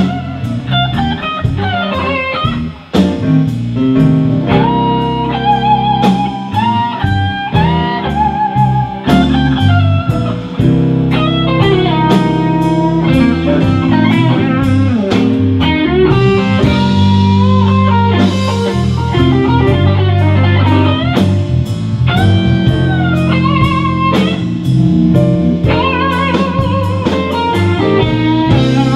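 Electric blues played live: a Fender Stratocaster plays a lead solo of bent, sustained notes with vibrato, over a drum kit keeping a steady beat.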